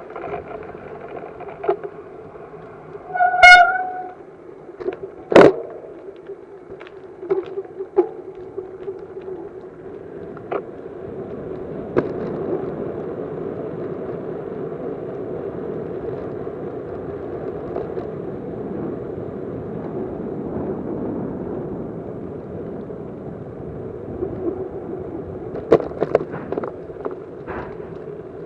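A short horn toot, one steady pitched note lasting about half a second, about three seconds in, over a steady background noise. It is broken by several sharp knocks, the loudest about five seconds in.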